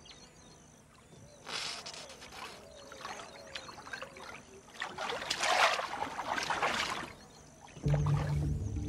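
Water sloshing and splashing in irregular surges as Indian rhinoceroses move and wallow in a muddy pool. A faint high chirring runs behind it. Music comes in near the end.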